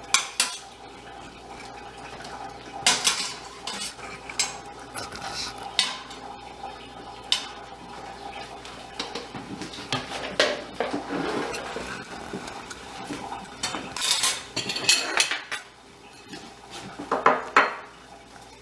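Metal kitchen tongs clinking and scraping against a steel pot and a plastic colander as boiled dumplings are lifted out, with irregular clatters of kitchenware.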